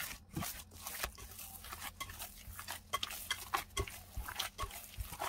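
Hands kneading a soft, oiled dough of vital wheat gluten and blended tofu in a glass bowl: a busy run of irregular short squishes and slaps.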